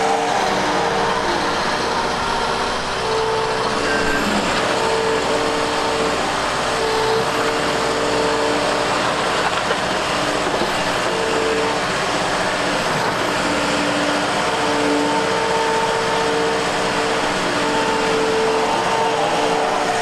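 Liebherr R930 G8 crawler excavator working: steady engine and machinery noise, with a whining tone that comes and goes every second or two.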